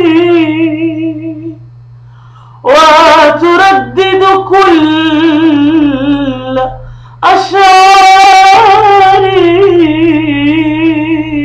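A woman singing an Arabic sung poem in long, drawn-out phrases with a wavering vibrato. One phrase fades out about a second and a half in, and after short breaks two more long phrases follow. A steady low hum lies underneath.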